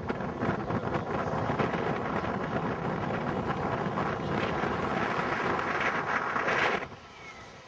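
Wind rumbling and buffeting on the microphone, with a brighter rushing noise building near the end that cuts off suddenly.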